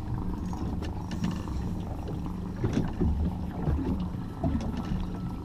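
Small motorboat on the water: a steady low hum with water lapping against the hull and a few light knocks and clicks.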